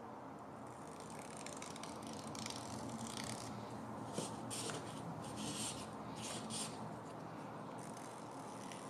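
A sharpened wooden popsickle stick scraping old paint off a metal gauge-stand base in a series of short, scratchy strokes, with a light tap about four seconds in.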